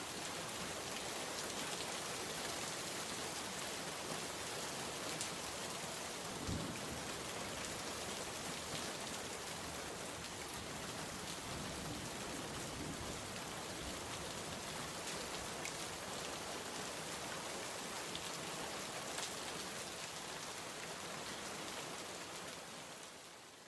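Steady rain falling and pattering on a surface, an even continuous hiss, fading out near the end.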